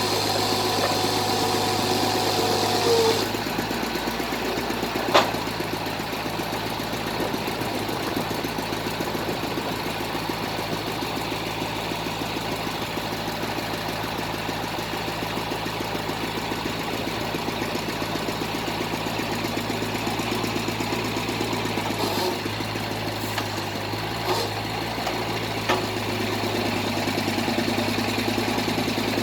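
Engine of a bored-pile drilling rig running steadily. A higher whining tone stops about three seconds in, a sharp click comes about two seconds later, and a few light knocks come near the end.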